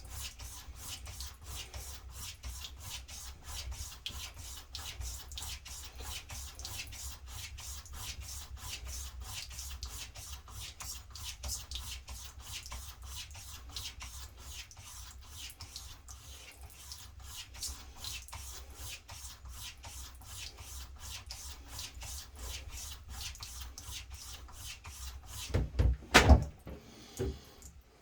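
Straight razor being stropped on a genuine horsehide leather strop: a long, even run of light, rapid rubbing strokes. A few loud knocks near the end.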